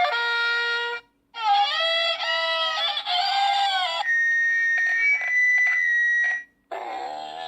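A handheld electronic sound effects machine playing a string of short effects one after another. First the tail of a held musical note, then a wavering sound with bending pitch, then an alarm-like electronic tone with clicks. A new effect starts just before the end.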